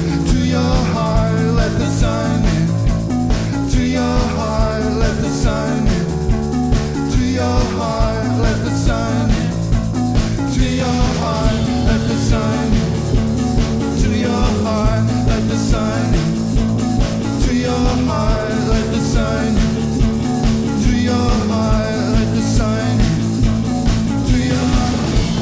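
Rock band playing, with guitar over a steady beat.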